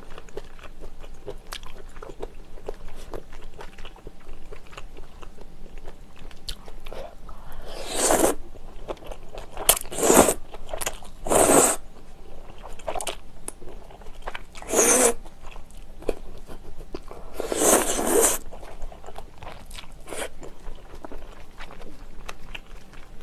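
Close-miked eating of spicy jjamppong noodle soup: wet chewing with many small mouth clicks, and about five loud slurps of noodles, the longest about three-quarters of the way through.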